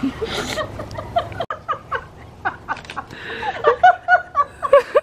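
People laughing and giggling in short, quick bursts, louder toward the end.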